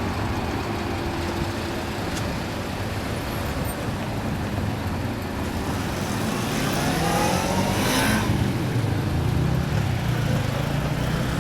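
A vehicle passes close by. A whine climbs in pitch for about a second and a half, peaks as it goes by about eight seconds in, and is followed by a lower rumble as it moves away, over a steady background of traffic noise.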